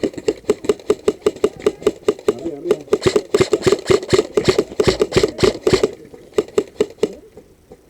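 Quick, steady footsteps of someone moving fast over dry, stony ground, each step with a dull thud and a crunch. The crunching is loudest in the middle, and the steps stop about seven seconds in.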